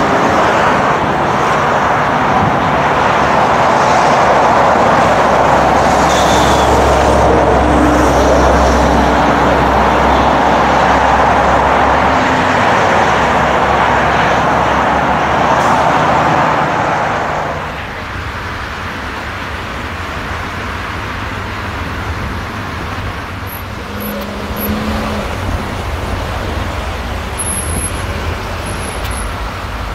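Jet engines of a four-engine Boeing 747 running loud just after touchdown on the landing rollout, a steady rush with a low hum. About 17 seconds in it drops suddenly to a quieter, distant jet rumble.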